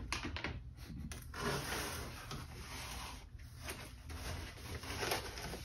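Paper and a thin plastic bag rustling and crinkling as they are handled, in uneven swells.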